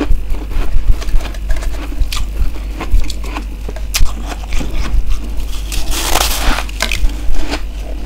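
Close-miked crunching of humidifier freezer frost being bitten and chewed: a run of crisp crackles and crunches, with a denser, louder burst of crunching about six seconds in. A steady low hum lies underneath.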